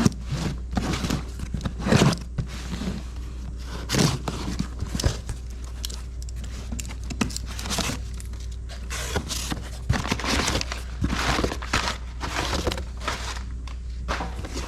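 Packaging rustling and crinkling in irregular bursts, with scattered clicks, as a repair kit is handled and unpacked, over a steady low hum.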